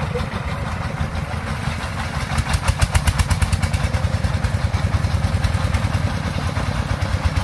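Single-cylinder diesel engine of a công nông farm truck running with an even chugging. It grows louder and punchier for a second or so from about two seconds in, then settles back.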